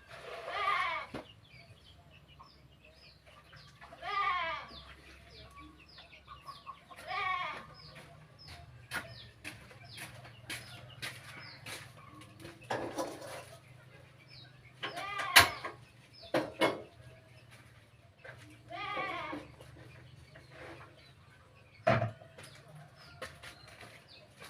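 Goats bleating, about six separate calls, with scattered sharp clicks and knocks in between, the loudest knock about fifteen seconds in.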